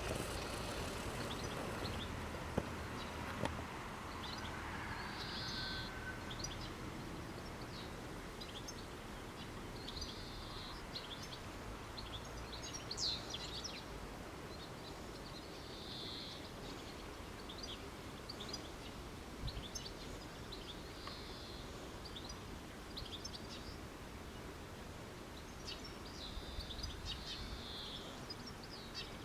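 Small birds chirping and twittering, with one call coming back about every five seconds, over a low steady background noise.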